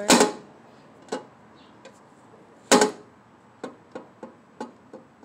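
Chevrolet Tracker's fuel filler door clacking shut twice, about two and a half seconds apart, as it is tested for closing over a newly fitted gas cap tether. A lighter click comes about a second in, and a few faint ticks follow the second clack.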